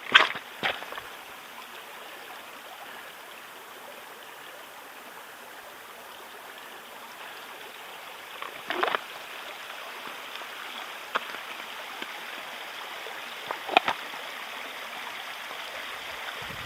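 Stream water running steadily, with a few short sharp clicks about nine and fourteen seconds in.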